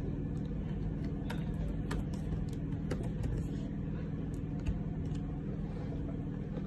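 A steady low hum with a few faint, scattered clicks from computer keys as text is typed.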